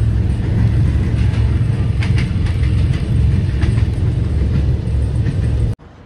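Loud, steady low rumble of a moving vehicle heard from inside, with scattered light clicks and knocks. It cuts off abruptly near the end.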